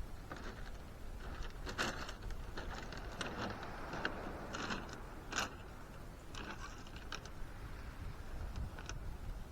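Irregular short clicks and rattles, about a dozen scattered unevenly, over a steady low rumble of wind.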